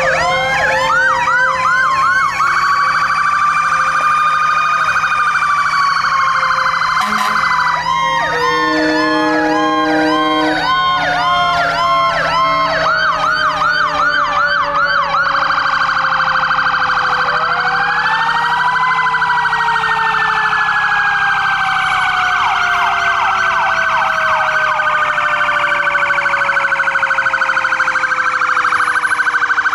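Several fire truck sirens sounding at once. Electronic sirens yelp with fast up-and-down sweeps, about four a second. Another siren climbs slowly, winds down over many seconds, then climbs and winds down again, and a low steady horn note sounds for a couple of seconds about nine seconds in.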